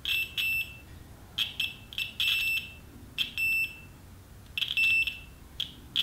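Multimeter continuity tester beeping in a string of short, uneven high beeps as the test probes touch the turret-board turrets and tube-socket pins; each beep marks a continuous connection in the freshly rewired tube-amp circuit.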